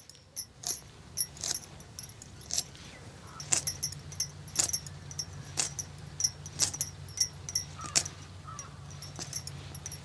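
Carrot being sliced against an upright iron floor blade: a string of crisp, irregular clicks, roughly two a second, one for each cut, over a faint low hum.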